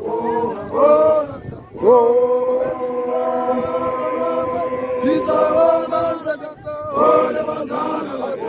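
A large group of young Basotho initiates (makoloane) chanting a song together in male voices, with one long held note from about two seconds in to about five seconds, then shorter phrases.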